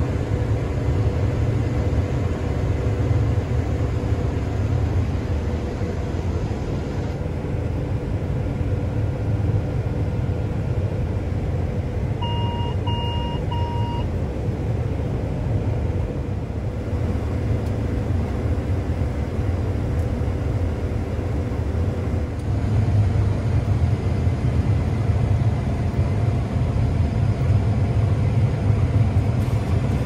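Steady low drone of a New Holland combine running while harvesting wheat, heard from inside the cab. About halfway through come three short electronic beeps in quick succession.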